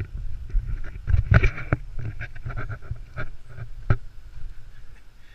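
Irregular footsteps and knocks of a handheld camera on a hiking trail, over a continuous low rumble of movement on the microphone.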